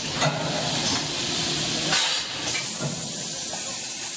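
Automatic premade-pouch packing machine running, its pneumatic cylinders giving a steady hiss of air. Sharp clacks come near the start and about two seconds in, with a short, brighter burst of air hiss just after the second.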